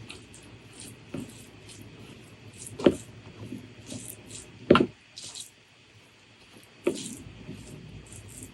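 Close-miked eating sounds: scattered clicks, crunches and mouth noises at irregular intervals, with the loudest about three, five and seven seconds in.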